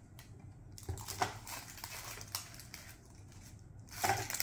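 Plastic toy packaging crinkling and rustling, with small plastic clicks, as a child handles a toy capsule and its wrapped pieces; the rustling starts about a second in.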